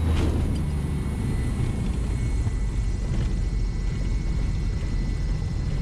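Maule M7-235's six-cylinder Lycoming engine idling with the propeller turning slowly as the plane rolls out on the runway, heard from inside the cockpit as a low, uneven rumble. There is a brief click about a quarter second in, and a faint steady high whine throughout.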